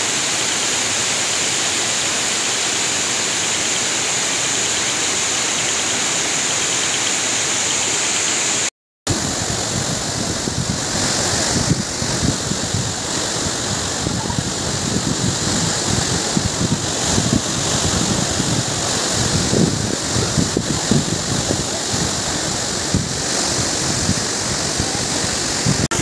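Waterfall rushing: a loud, steady noise of falling water. It breaks off for a moment about nine seconds in, and after that it comes back more uneven, with small surges.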